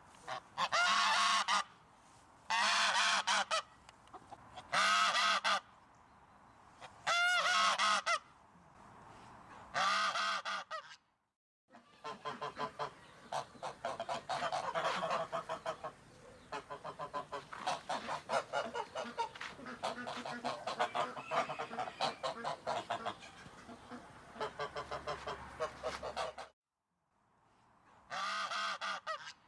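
A goose honking five times, each loud honk about a second long and about two seconds apart. After a brief silence comes a long dense run of many quick honks, and then one more single honk near the end.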